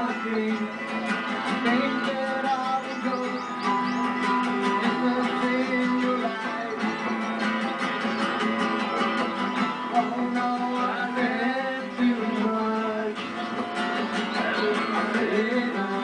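Folk music played live: a steel-string acoustic guitar strummed together with a second plucked string instrument, and a man singing along.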